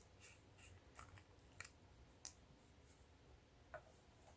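Near silence with a few faint clicks as a fountain pen's cap is taken off and handled.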